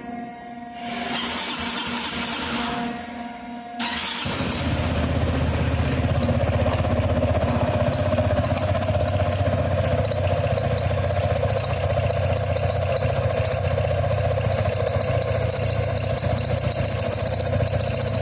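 Scooter engine being cranked twice: a first start attempt about a second in does not catch, a second attempt near four seconds in catches, and the engine then idles steadily.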